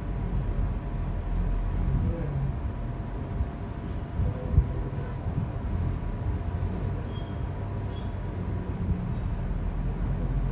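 A steady low background rumble with a faint constant hum, and a single short knock about four and a half seconds in.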